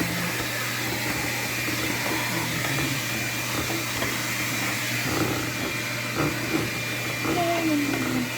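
Vacuum cleaner running steadily, sucking dirt out of the crevices of a car's engine bay, with a constant drone and a thin whistle.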